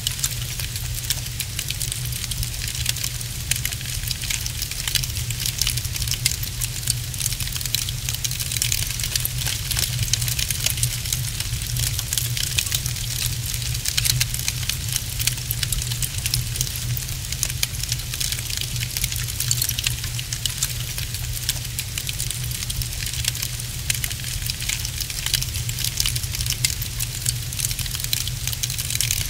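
Wood fire crackling in a fireplace: dense, rapid crackles and small pops over a steady low rumble.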